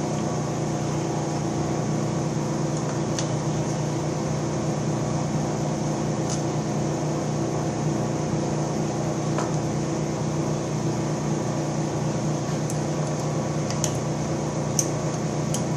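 Steady mechanical hum of shop machinery running, with a few faint light clicks as the cutter on the boring bar is adjusted by hand.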